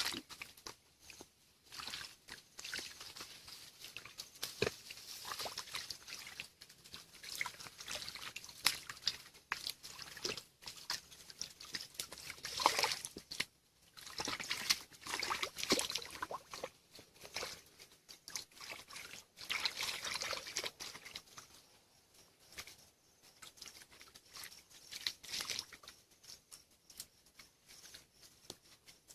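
Hands sloshing and splashing in shallow muddy water while groping for fish, in irregular bursts of splashes and trickles.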